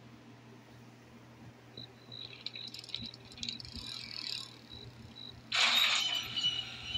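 Night ambience with crickets chirping and a motorcycle pulling into a driveway. About five and a half seconds in comes a sudden loud burst of noise.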